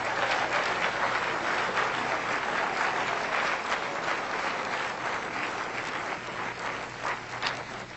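Audience applauding, many people clapping together, the applause slowly dying away with a few last separate claps near the end.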